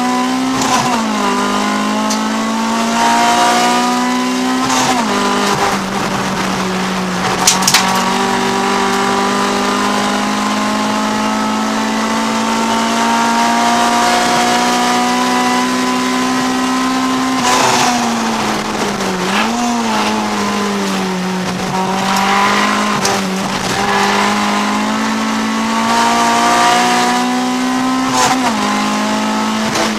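Honda CRX race car's B20 VTEC four-cylinder engine at racing revs, heard from inside the cabin. It climbs slowly in pitch along a straight and drops sharply several times on shifts and braking, with quick rev blips on the downshifts. There are a few sharp clicks about seven and a half seconds in.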